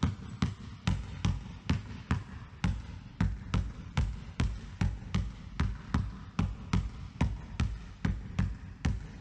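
A basketball dribbled low and steadily on a wooden gym floor, about three bounces a second.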